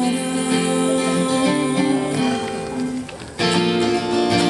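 Acoustic guitar strummed live, playing a song's chords. The playing thins out and goes quieter about three seconds in, then loud strummed chords come back in.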